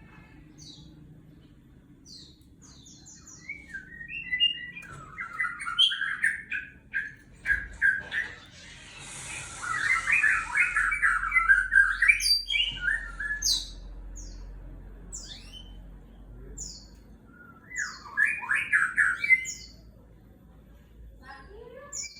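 White-rumped shama (murai batu) singing: spells of fast, trilled phrases and high whistled notes with pauses between them. A hiss sounds behind the song from about nine to twelve seconds in.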